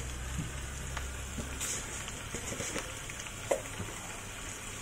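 Sambal with prawns and petai sizzling in a wok, a steady frying hiss with a few small pops. A low hum underneath stops about a second and a half in.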